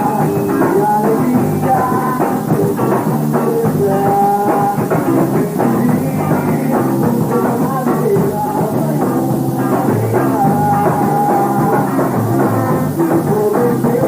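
Band playing a rock piece with a drum kit and drums, built on a fusion of Congo capixaba and maracatu rhythms.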